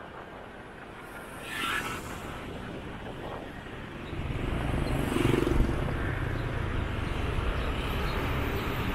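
Street traffic and road noise heard from the back of a moving motorbike, with a brief louder swell about a second and a half in. About four seconds in, a heavy low rumble comes in and holds.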